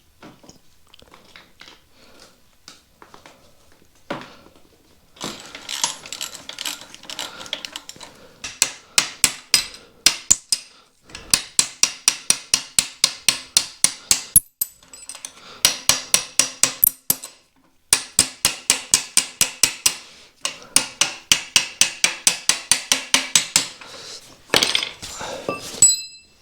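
Hammer tapping repeatedly on a steel mounting bolt to drive it out through a Yamaha YZ125's frame. The strikes are sharp and ringing, about three to four a second, in several runs with short pauses. Softer handling clatter comes first.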